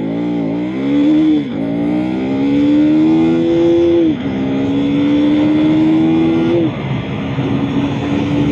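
KTM Duke 250's single-cylinder engine under hard acceleration, its pitch climbing in each gear and dropping sharply at three upshifts, then holding steady at speed. Wind noise rushes over the microphone.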